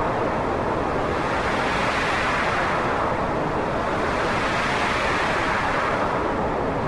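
Wind blowing, a steady rushing noise whose pitch drifts slowly down and back up, rising higher near the end.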